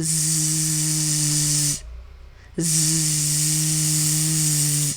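A woman's voice holding the buzzing "zzz" sound of the letter Z twice, each about two seconds long, with a short pause between them.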